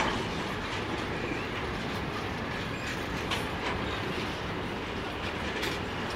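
Loaded container wagons of a freight train rolling past in a steady rumble, with a few sharp clicks from the wheels on the track.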